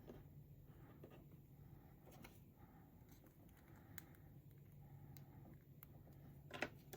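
Near silence, with a few faint clicks of small model parts being handled and fitted together, and a slightly louder pair of clicks near the end.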